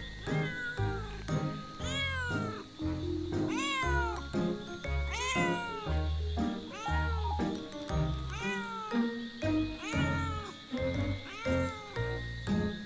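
Cat meowing over and over, about once a second, each meow rising and falling in pitch, over background music with a steady beat.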